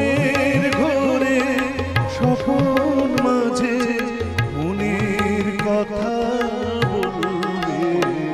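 Live South Asian ensemble music: tabla keeping a rhythm under a wavering melody line, with sitar, flute and violin in the band.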